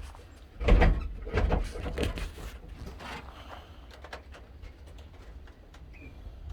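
A few heavy thumps and knocks, the loudest about a second in, followed by fainter scattered clicks and rustling.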